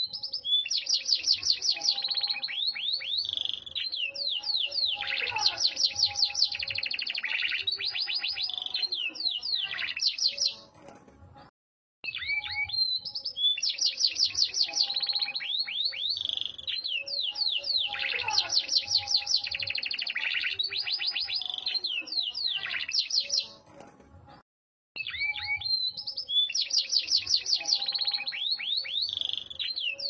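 Yorkshire canary singing in long bouts of fast trills, rolls and sweeping whistled notes, each bout about ten seconds long. The song breaks off twice for a second or so of silence before starting again.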